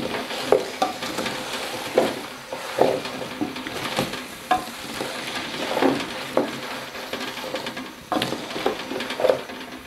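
Potato chunks in tomato sauce sizzling in a pot while a wooden spoon stirs them, with irregular scrapes and knocks of the spoon against the pot, about one a second.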